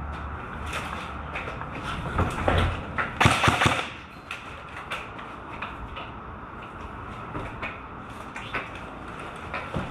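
Airsoft players moving through rooms: footsteps and gear knocking and rustling, with a short run of loud, sharp clacks about three seconds in.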